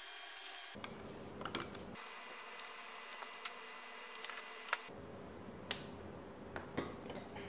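Scattered light clicks and taps of a circuit board and small tools being handled on a workbench, the sharpest about four and a half and five and a half seconds in.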